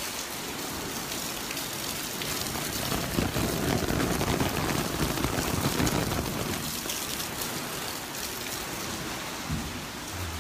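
Steady hiss of rain falling, swelling louder and fuller for a few seconds around the middle before easing back.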